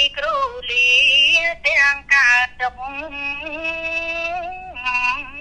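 A Buddhist monk's male voice chanting a Khmer sermon in a sung recitation style: short melodic phrases, then one long held note with a slight waver from about three seconds in.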